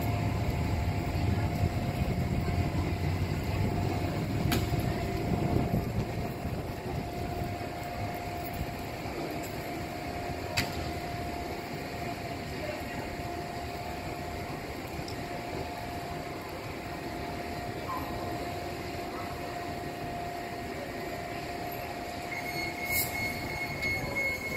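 A light-rail train at street level: a low rumble that eases after about six seconds, under a steady hum that cuts off near the end, with a few sharp clicks along the way.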